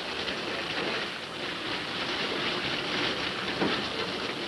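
Steady rushing hiss of seawater spraying into a submarine through a leak in the pressure hull.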